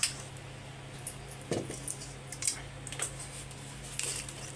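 Scattered light clinks and knocks of a metal kadhai and utensils being handled and set down on a clay wood-fired stove, over a steady low hum.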